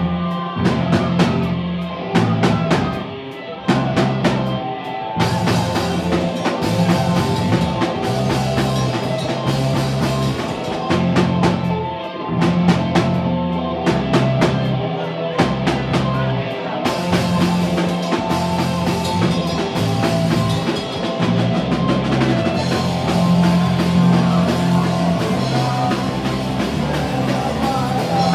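Live rock band playing loud, without singing: electric guitars over a drum kit. There is a run of fast, sharp drum hits in the first few seconds.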